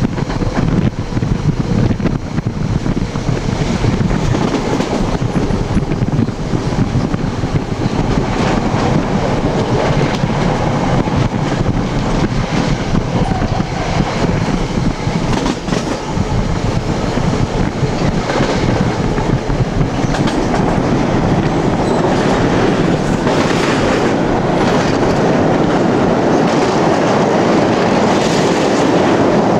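NJ Transit commuter train running at speed, heard at an open window in the vestibule between cars: a loud, steady rumble of steel wheels on the rails with repeated clicks from the track.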